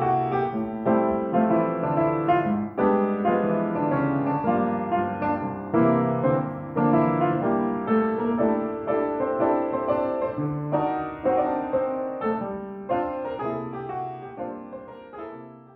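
Outro music played on piano: a steady run of notes that fades out near the end.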